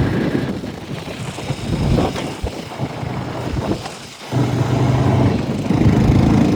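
Vehicle engine running, a rough low rumble that steadies into an even hum after a brief dip about four seconds in, with wind buffeting the microphone.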